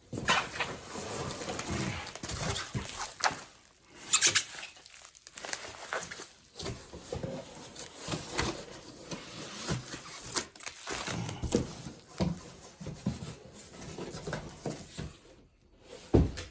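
Bubble wrap and packing being handled and pulled apart: an irregular run of crinkling and crackling with a few sharper snaps.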